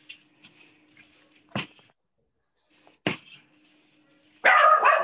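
Dogs barking: two single barks, then a rapid run of loud barks starting about four and a half seconds in.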